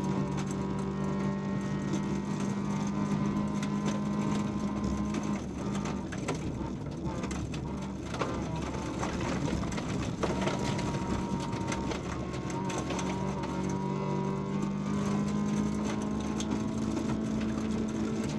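Interior of a VW Polo 1.4 16V rally car: its four-cylinder engine runs hard at high revs under gravel road noise. The engine note drops and shifts pitch several times between about five and fifteen seconds in, then settles back to a steady high-rev pull.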